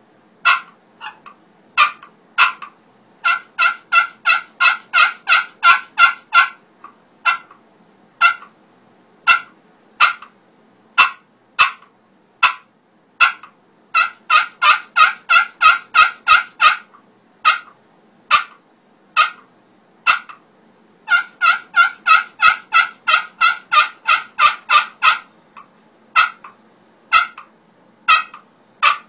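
Slate-and-glass turkey pot call being played, imitating a turkey. It gives sharp single notes spaced out, broken by three long runs of rapid two-toned notes, about four or five a second: one a few seconds in, one midway and one near the end.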